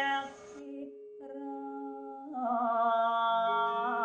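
Slow background music of long held notes, quieter for about two seconds, then a voice humming a long wavering note over them about two and a half seconds in.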